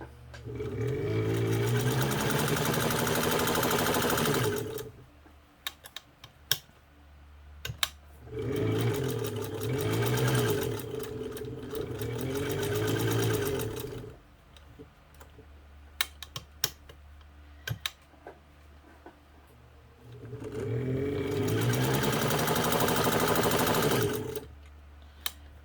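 Kenmore 117.552 straight-stitch sewing machine, driven through a leather-covered friction pulley tire, running and sewing straight stitches in three runs of about five seconds each, its speed rising and falling. Between the runs come short clicks and knocks.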